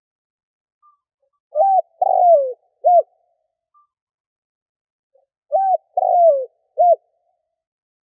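Spotted dove cooing in two phrases about four seconds apart, each of three coos: a short one, a longer one falling in pitch, then another short one. It is a trained decoy dove's call, used to draw wild spotted doves in.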